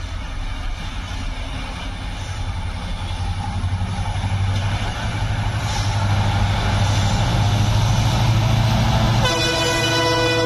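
Diesel express train headed by a WDP4 locomotive approaching at speed, the engine's low drone growing steadily louder as it nears. Near the end the locomotive starts a long, steady horn blast.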